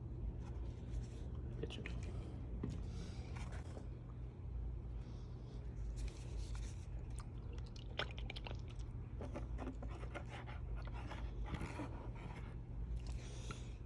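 Intermittent faint scraping and small clicks from gold-panning gear being handled, over a steady low hum.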